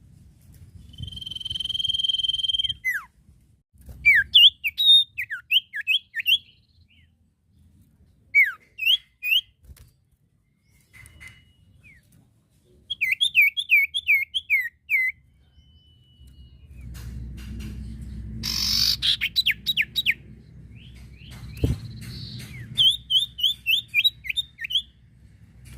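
Common iora singing: a long steady whistle near the start, then several runs of quick, sharply slurred whistled notes, with a harsher rapid run of notes about two-thirds of the way through.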